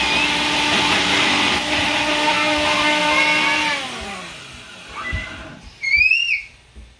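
Countertop blender motor running steadily as it purées eggs with spring mix and spinach, then spinning down with a falling pitch about four seconds in. A knock follows, then a brief, loud high squeal near the end as the jar is lifted off the base.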